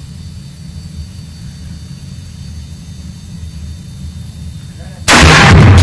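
A steady low rumble, then about five seconds in a single shot from a .700 Nitro Express big-game rifle, so loud that it overloads the recording and stays at full level.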